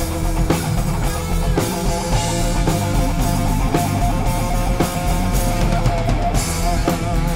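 Rock band jamming: two guitars, bass guitar and drum kit playing a steady, driving groove.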